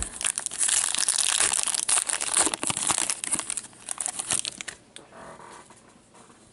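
Foil wrapper of a 2014-15 Upper Deck Masterpieces hockey card pack being torn open and crinkled by hand. The dense crackling dies down to faint handling about five seconds in.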